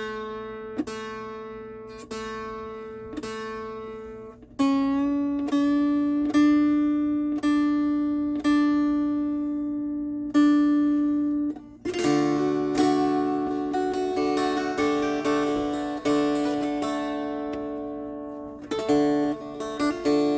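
Mountain dulcimer played in an even, repeated picking pattern over ringing drone strings. The melody shifts to a new pitch about four and a half seconds in, and the sound becomes fuller with more strings sounding together from about twelve seconds in.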